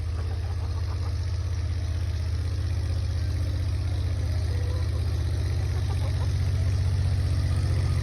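Steady low rumble with a fast, even pulse, of the kind an idling engine makes.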